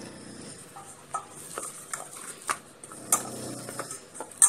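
Hands kneading and pressing soft, oiled maida dough in a stainless-steel bowl, with scattered light knocks against the metal bowl and a sharper knock near the end.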